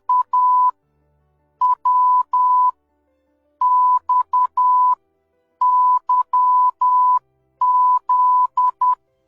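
Morse code played as a steady, pure beep at about 1 kHz, keyed in short and long beeps: the end of a V, then the letters W, X, Y and Z, each letter a separate group with a pause of about a second between them.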